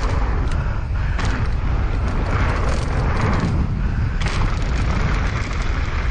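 Wind buffeting the microphone in a steady loud rumble, with rattles and small knocks throughout, as from fast movement outdoors.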